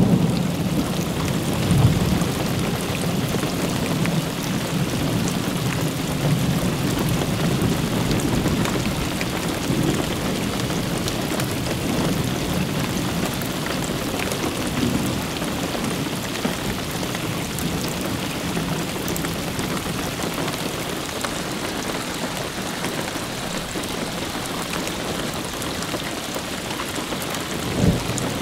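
Thunderstorm: steady rain with a rolling rumble of thunder that slowly fades, then one short sharp thunder crack near the end as lightning flashes.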